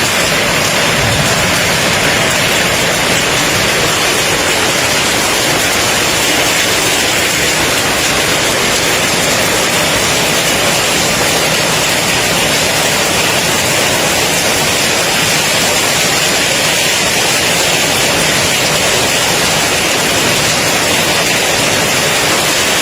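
Summer storm: rain and strong wind making a loud, steady rushing roar.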